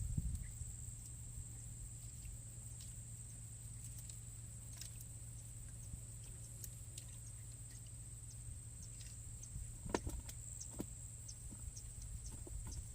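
Steady high-pitched insect drone over a low rumble, with scattered small clicks and a few knocks about ten seconds in.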